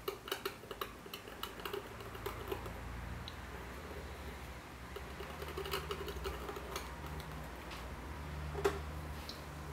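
A skewer scratching a thin line through soft oil-stick paint on a painting panel: faint scratchy ticks and small clicks, most of them in the first couple of seconds, over a steady low hum.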